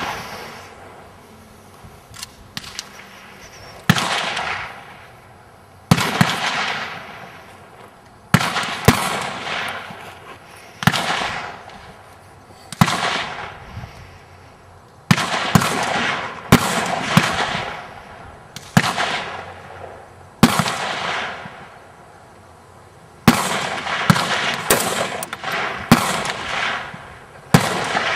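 A string of rifle shots from 7.62x54R Dragunov-pattern semi-automatic rifles, about one every one to two seconds. Each shot is a sharp crack followed by a long echoing tail.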